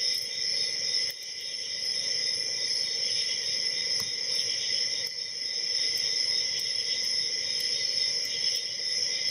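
Steady high-pitched insect chorus, with a few faint light ticks from a hook pick working the pins of the padlock.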